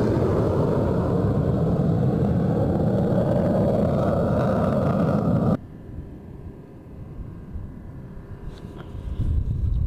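CF-188 Hornet twin-engine jet noise: a loud, steady rumble from a jet flying past that cuts off abruptly about halfway through. After a quieter stretch, the low rumble of another approaching Hornet builds again near the end.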